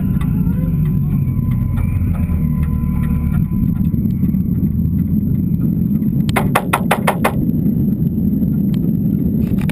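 Nissan 180SX's turbocharged SR20DET four-cylinder engine running at low revs as the car rolls slowly, heard from inside the cabin. A little after six seconds in comes a quick run of about seven clicks.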